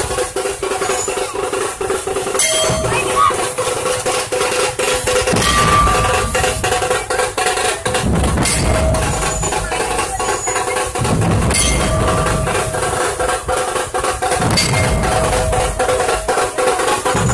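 A Maharashtrian dhol pathak drum troupe playing in a street procession. Rapid, dense drumming runs throughout, and deep dhol strokes come in waves every few seconds. A held pitched tone sounds now and then over the drums.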